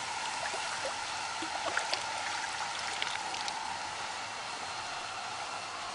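Steady rushing hiss of flowing river water, with a few faint clicks.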